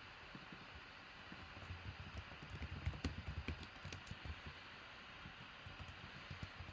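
Typing on a computer keyboard: a run of faint, quick keystrokes, busiest about two to four seconds in, with a few more near the end.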